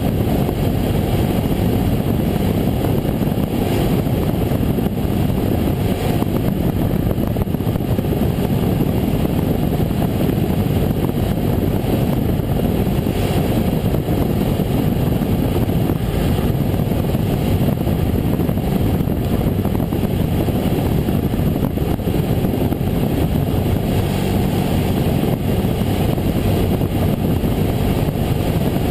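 Cessna 172M's four-cylinder Lycoming engine and propeller running at a steady drone in flight, heard from inside the cabin.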